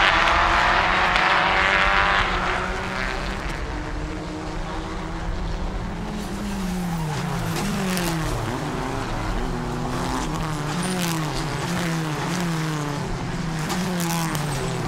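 Volkswagen Ameo Cup race cars at racing speed: a loud close pass in the first two seconds, then several engines revving hard, their notes climbing and dropping again and again as the pack goes through the corners.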